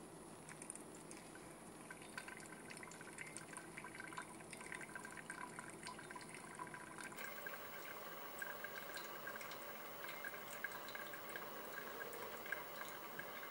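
Hot water poured in a thin stream from a gooseneck kettle onto coffee grounds in a Kalita Wave pour-over dripper, with a fine crackle of many small ticks. About seven seconds in it switches abruptly to brewed coffee dripping and trickling into a glass server, with a slight ringing from the glass.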